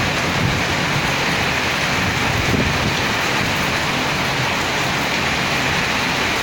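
Heavy wind-driven rain pouring down steadily in a dense, even hiss, with an uneven low rumble of wind beneath it.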